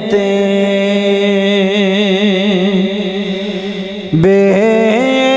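A man sings long, wavering held notes in a Punjabi devotional kalam recital. The melody ornaments around each note. Just after four seconds in he breaks off briefly and comes in again on a higher note.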